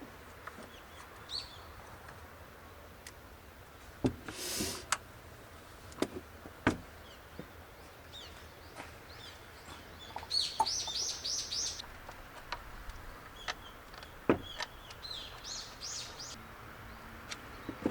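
A small songbird calling, with a quick run of about eight high repeated notes about ten seconds in and another shorter run near the end. Scattered sharp clicks and knocks, and a brief hiss about four seconds in.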